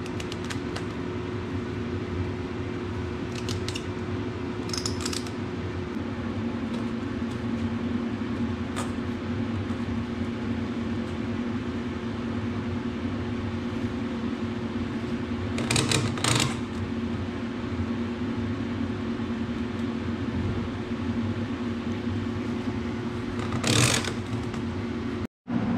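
A steady mechanical hum with a low drone runs throughout. Over it come occasional clicks and a few short knocks as the rear window panel is pushed onto the Gator's roof-frame brackets, the loudest about two-thirds of the way through and again near the end.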